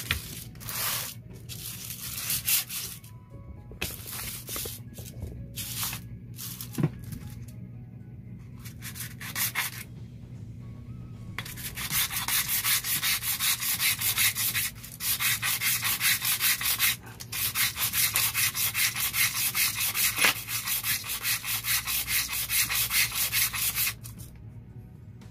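A Honda RS150 DOHC engine's aluminium cam holder is rubbed back and forth by hand on a sheet of sandpaper, making a scratchy sanding sound. It comes in scattered short strokes at first, then fast, even strokes from about halfway in until just before the end. The holder is being lapped down to close up an oversized clearance of nearly 1 mm on the camshaft, which lets the cam lift as it turns and makes the head noisy.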